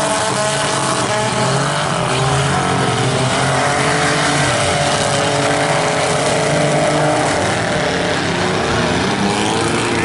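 Several small car engines revving and running together, their pitches rising and falling over one another, with no single crash standing out.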